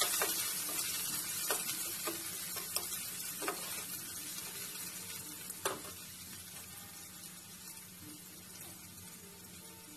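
Sliced onions and crushed garlic sizzling in hot oil in a kadhai, stirred with a spatula that scrapes and knocks against the pan several times in the first six seconds. The sizzle grows fainter toward the end.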